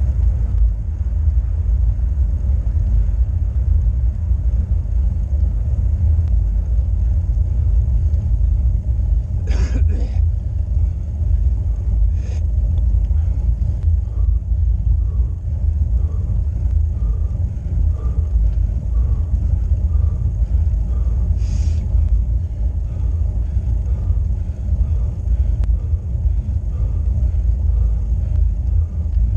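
Steady low rumble of wind buffeting and road vibration on a bicycle-mounted action camera as a road bike climbs slowly. A faint regular ticking comes in about halfway through, and two short hisses are heard, one about a third of the way in and one about two-thirds in.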